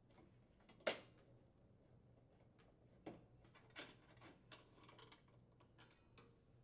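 Faint clicks and taps of a screwdriver and screws on a gas range's sheet-metal cooktop: one sharp click about a second in, then a few softer ones.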